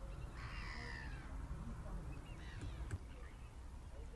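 Black-headed gulls calling: one long falling call starting about half a second in, then a few shorter calls between two and three seconds, over a steady low rumble.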